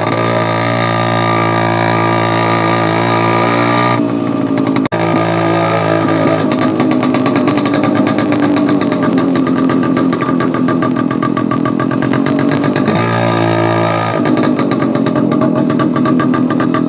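TVS 50 moped engine running with the silencer end cap removed, its open exhaust note riding on the road. It is steady for the first few seconds, then louder and rougher with rapid pulsing from about four seconds in, easing briefly around thirteen seconds before picking up again.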